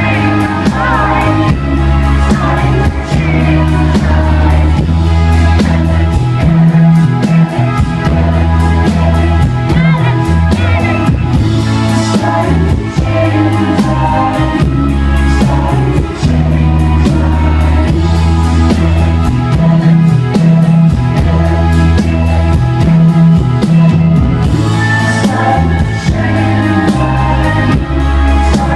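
Live rock band playing, with drum kit, bass, guitar and a singing voice, loud and continuous.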